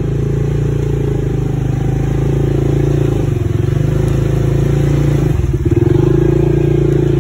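Off-road vehicle's engine running steadily under throttle. The revs dip briefly twice, about three and five and a half seconds in, then pick up again.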